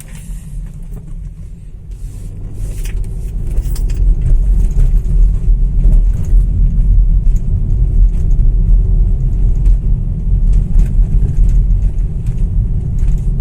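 Road noise inside a BMW X1's cabin climbing a rough, potholed street: a loud low rumble that builds over the first few seconds and then holds, with scattered faint knocks and rattles. The front control-arm bushing clunk the car was brought in for is not apparent on this stretch.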